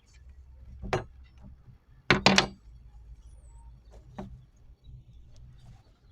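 A few knocks and clunks: a single one about a second in, a louder quick cluster around two seconds, and a lighter one near four seconds, over a faint low hum.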